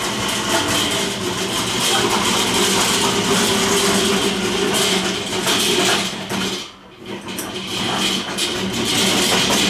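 Background music with steady held notes, dropping away briefly about seven seconds in before resuming.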